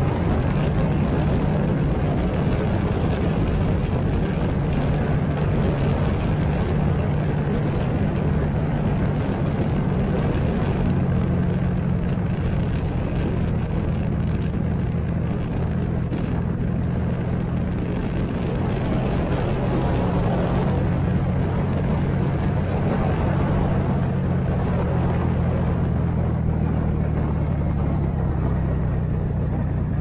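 Motorcycle engine running steadily at a cruising pace, under a dense rush of wind and road noise.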